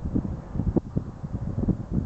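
Wind buffeting the microphone: an uneven low rumble in many quick, irregular gusts.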